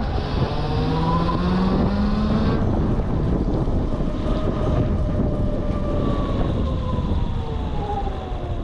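Super Soco TC-Max electric motorcycle's 4.5 kW electric motor whining under throttle. Its pitch rises over the first two and a half seconds as the bike accelerates, then falls slowly over the last few seconds as it slows. Wind rushes over the microphone throughout.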